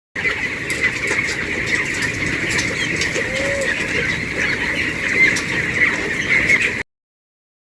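A flock of broiler chicks peeping, many short high chirps overlapping without pause. It cuts off suddenly about seven seconds in.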